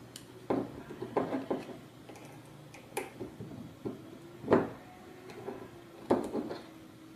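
Irregular small clicks and knocks of a screwdriver and bolts against the robot kit's plate and servos as the bolts are tightened by hand, the loudest knock about four and a half seconds in.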